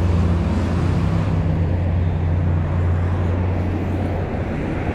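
Road traffic on a city avenue: a motor vehicle's engine runs close by with a steady low hum over tyre and traffic noise, easing off about four seconds in.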